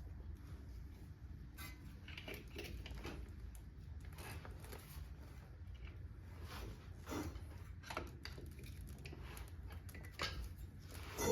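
Hand tools and metal parts clinking and tapping now and then during car axle repair work, over a steady low hum.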